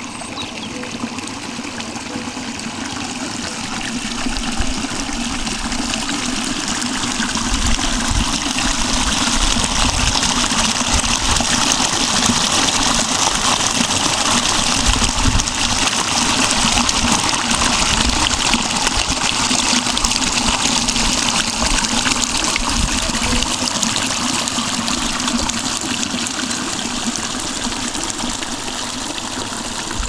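Small mountain stream running over stones, a steady splashing and trickling rush of water. It grows louder a few seconds in, heard close to the tumbling water, and eases off near the end.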